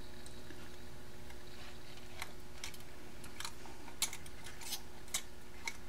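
Scattered small clicks and taps of a soldering iron tip and a capacitor's wire lead against the metal terminals of a tube-amplifier chassis, irregularly spaced, the sharpest about four seconds in, over a steady faint hum.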